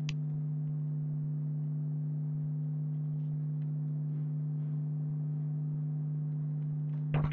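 A steady low hum with a couple of higher overtones, unchanging throughout. A sharp click right at the start and a few faint ticks are heard over it.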